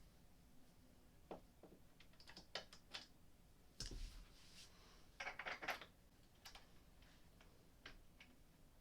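Faint, scattered metal clicks and taps in small clusters, as an Allen wrench turns a bolt into a small silver fitting under a changing-table shelf to secure it.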